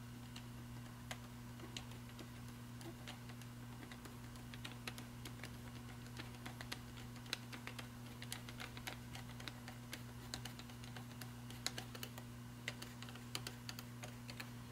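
Faint, irregular small metal clicks and ticks from tightening the clamp screw on the cover band of a rebuilt 12-volt Ford tractor starter. The clicks grow busier after about four seconds, over a low steady hum.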